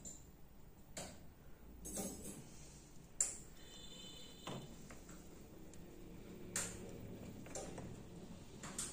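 Faint, sharp clicks and light taps every second or few, from small metal tools handled at a phone repair bench, with a brief faint high ringing about four seconds in.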